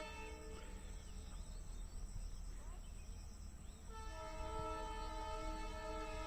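Horn of a WDG4 diesel locomotive: the tail of one blast ends just after the start, then a long, steady multi-note blast begins about four seconds in, over a low rumble.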